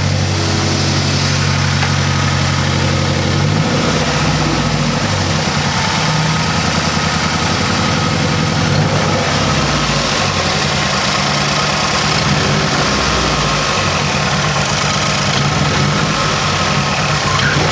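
A 2006 Mazdaspeed 6's turbocharged 2.3-litre four-cylinder idling roughly with a pretty bad misfire, the idle choppy and uneven. The owners suspect a failed ignition coil pack.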